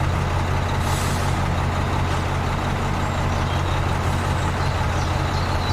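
Heavy vehicle engine running steadily, a low hum under a hiss, which cuts off suddenly near the end.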